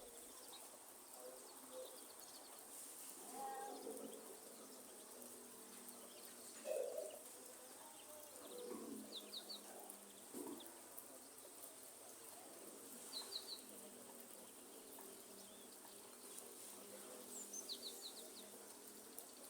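Faint forest ambience with birds calling: several lower calls in the first half and small groups of quick, high chirps later on, over a steady, faint high insect-like hiss.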